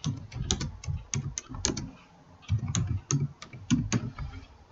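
Typing on a computer keyboard: a quick run of key clicks, each with a soft thud, broken by a brief pause about two seconds in.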